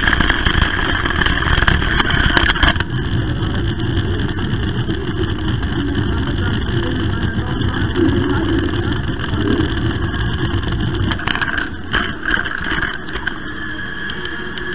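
Model train running along its track, heard from a camera riding on it: a steady rolling rumble with a motor whine.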